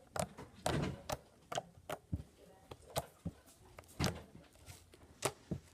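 Fluffy slime being handled and squished by hand, giving irregular sharp pops and clicks as it is stretched and pressed.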